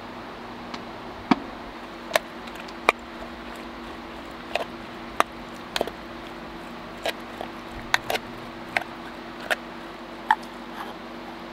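Sharp, irregular clicks and taps of a utensil against an open tin can of pitted black olives as it works among them, over a steady low hum.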